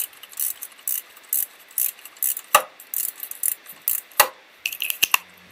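Socket ratchet clicking in repeated short strokes, about two a second, as the engine mount's main supporting bolt is screwed in, with two sharper metallic knocks partway through.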